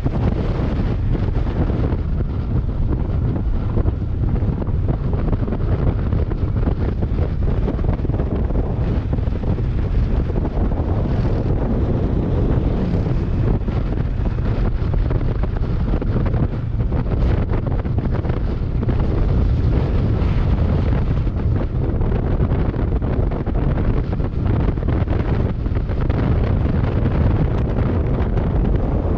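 Wind buffeting the microphone of a moving motorcycle: a steady, loud rushing noise, heaviest in the low end.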